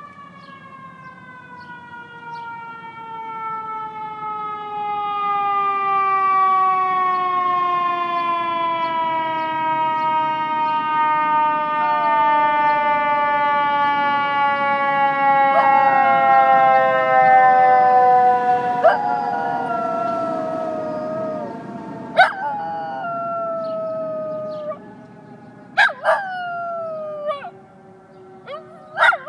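A siren slowly winding down in pitch throughout, with a schnoodle howling along: wavering howls join about halfway through, and in the last part come several sharp-starting howls that rise then slide down.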